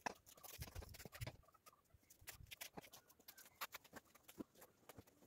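Faint scattered clicks, ticks and rustles of blankets and quilts being handled and pulled off motorcycles in a trailer, with a few soft low thumps about a second in.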